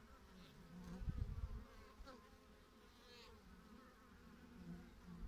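Honeybees buzzing at a hive entrance, with single bees flying past in buzzes that rise and fall in pitch. A brief low rumble about a second in.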